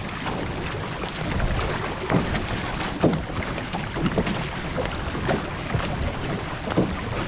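Water rushing and lapping along an outrigger canoe under way, with a splash from the paddles about once a second, plus wind on the microphone.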